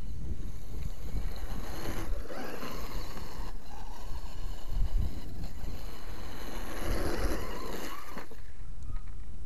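Brushless electric motor and drivetrain of a ZD Racing ZMT-10 1/10-scale RC monster truck whining as it drives over grass, the pitch rising and falling through two bursts of speed, about two seconds in and again about seven seconds in. A steady low rumble runs underneath.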